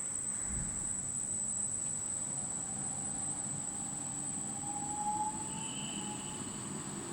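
Unimax 723H woodworking machine running with a steady high-pitched whine over an even mechanical hum, which comes in just as the setting is turned up.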